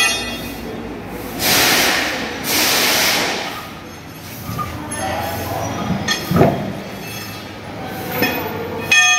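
Truck-wheel work in a tyre workshop: two hissing bursts from a compressed-air tool a second and a half in, then scattered metal clinks and a heavy thud about six seconds in as the wheel is handled.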